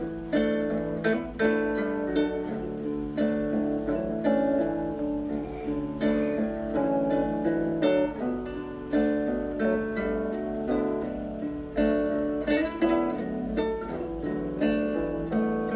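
Background music: an acoustic guitar plucking notes in a steady rhythm.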